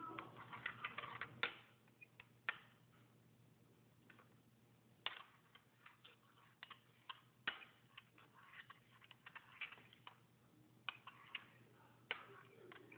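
Faint, irregular clicks and taps of a slime mixture of glue, shaving cream and paint being stirred, many together in the first second and a half, then scattered.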